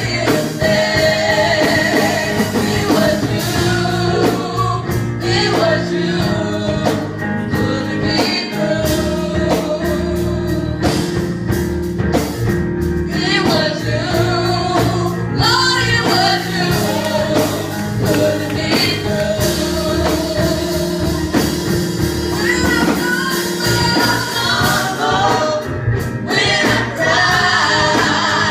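Three women singing a gospel song into handheld microphones, over a steady accompaniment of sustained low bass notes.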